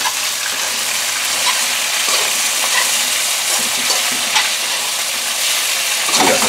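Diced chicken sizzling in oil in a wok over intense gas heat, with a metal utensil scraping and clicking against the pan as it is stirred. A cluster of louder scrapes comes near the end.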